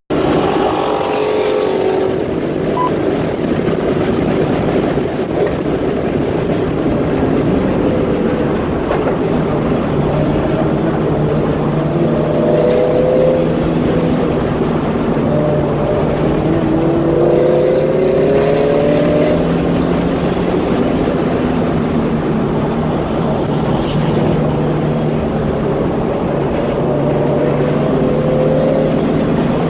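Car engine running hard on a track lap, its pitch climbing and dropping again and again as it accelerates and shifts gear, with a header exhaust leak that the driver hears on this lap.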